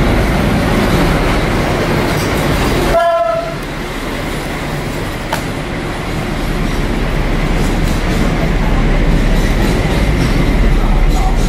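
SU46 diesel locomotive running past along the track, its engine rumbling steadily. A brief tone sounds about three seconds in. The rumble grows louder again toward the end.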